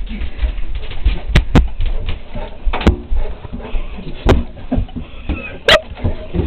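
Saint Bernard's claws clicking and paws bumping on a bathtub as she paws at a spot on the tub floor: about five sharp clicks spread over several seconds, with dull thumps between.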